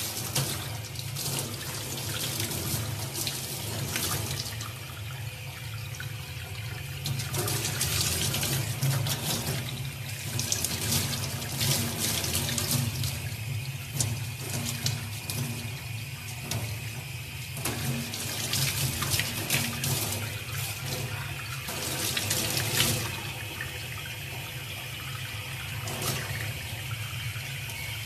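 Water running from a tap during a chimpanzee's bath, with irregular splashes throughout.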